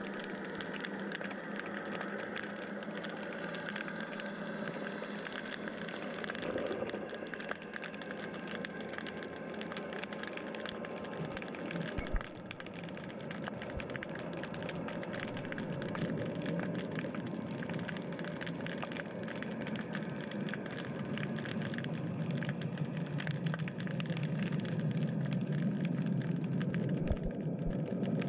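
Underwater ambience recorded by a submerged camera: a steady motor hum carried through the water, over a constant fine crackle, with an occasional knock. The hum grows a little louder near the end.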